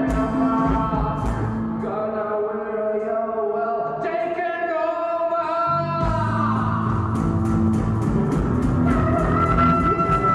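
Live rock band: a man singing over electric guitar, electric keyboard and drum kit. The drums drop out for a few seconds in the middle, leaving held keyboard and vocal notes, then come back in about six seconds in with steady cymbal hits.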